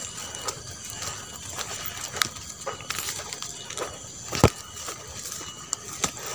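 Footsteps on a dirt trail and tall grass rustling and brushing against the camera while walking, with scattered crackles and one sharp knock a little past halfway.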